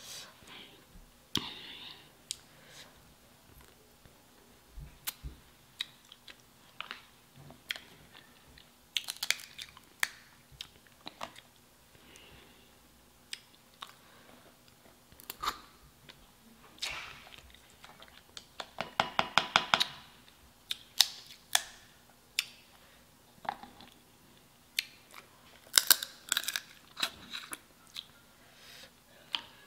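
A person eating seafood boil close to the microphone: chewing and mouth clicks, with scattered sharp ticks as shrimp and crab shells are handled. A fast run of clicks comes a little under two-thirds of the way in.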